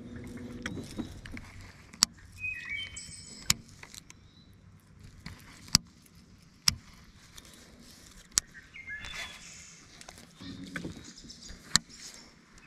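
Rod-and-reel handling while a Storm Twitch Stick jerkbait is cast and worked, with about six sharp clicks at uneven intervals. Birds chirp in the background.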